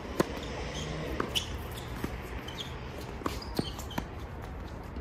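Tennis rally: a loud pop of the racket striking the ball on the serve just after the start, then a quick run of sharper pops from return, volleys and ball bounces on the hard court, about seven more, spaced unevenly.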